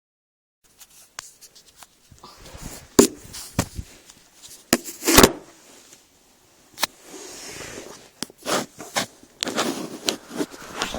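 Scattered sharp clicks and rubbing, scraping handling noises, then from about nine and a half seconds in a denser run of stomach gurgling begins.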